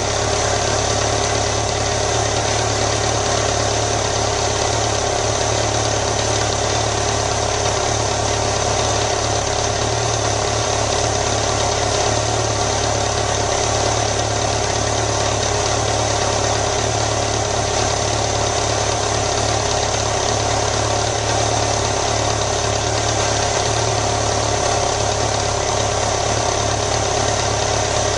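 BMW motorcycle engine idling steadily.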